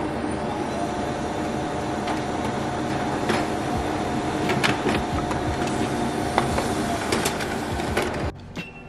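Brother MFC multifunction printer running a print job: a steady mechanical whir with a held whining tone and scattered clicks as the sheet is fed through and out into the tray. It cuts off abruptly near the end.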